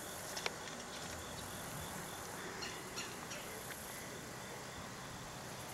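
Faint insects chirping in a steady rhythm, about three short high chirps a second, over light outdoor hiss, with a couple of small clicks near the start.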